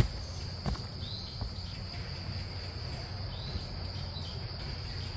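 Steady high-pitched trilling of insects in the forest, with a few footsteps on the log steps of a dirt trail in the first second or so, the first one close and the loudest.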